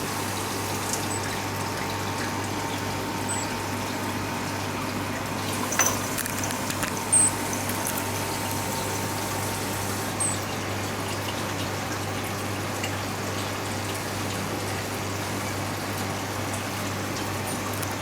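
Steady running-water noise with a constant low hum, like a small water pump, broken by a few faint clicks about six, seven and ten seconds in.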